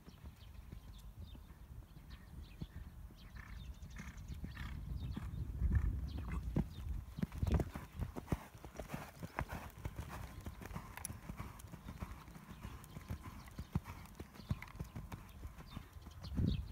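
Horse cantering on an arena's sand footing: rhythmic thudding hoofbeats, louder for a few seconds about a third of the way in and again at the very end as the horse passes close.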